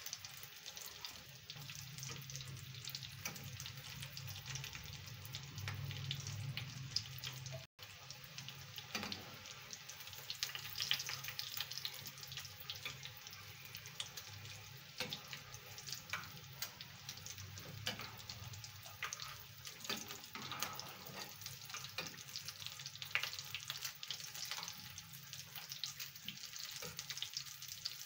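Chicken and potato cutlets shallow-frying in oil in a steel pan: a steady sizzle thick with small pops and crackles. The sound cuts out for an instant about eight seconds in.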